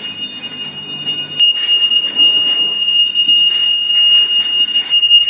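Fire alarm bell ringing continuously, set off by a manual push-button test on a conventional fire alarm control panel. It is one steady high ringing tone that gets louder about a second and a half in.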